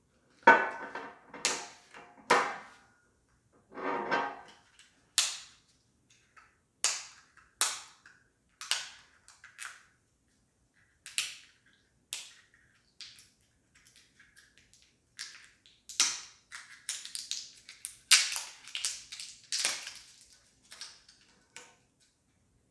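Thin plastic seal being peeled and torn off the cap of a Ramune soda bottle: irregular crinkling and crackling in short bursts with pauses, busiest near the start and again in the later part.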